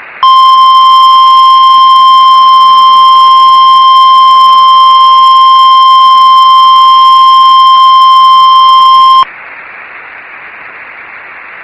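Weather-radio warning alarm tone: a single steady, very loud high tone lasting about nine seconds, which cuts off abruptly into steady radio receiver hiss. It is the alert that comes before a National Weather Service winter storm warning.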